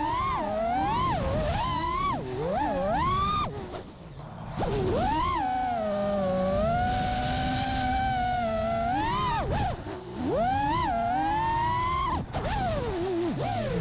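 FPV freestyle quadcopter's motors whining, the pitch swooping up and down quickly with throttle changes. The whine drops out briefly about four seconds in, holds fairly steady for a few seconds, then swings again.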